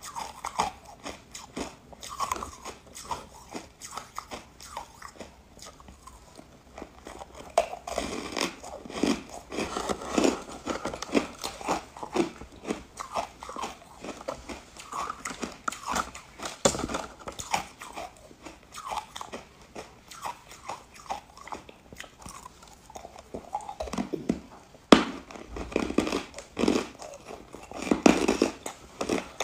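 Close-up biting and chewing of ice chunks coated in buckwheat powder: irregular cracking crunches as the ice breaks between the teeth. The crunches come thicker in the second half, with one sharp, loud crack late on.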